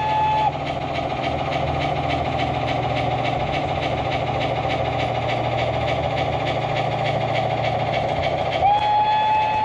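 G-scale model steam locomotive's sound-effect unit playing a quick, even steam chuff over the steady low rumble of the running train. Its whistle sounds at the start, stops about half a second in, and blows again near the end, dipping slightly in pitch.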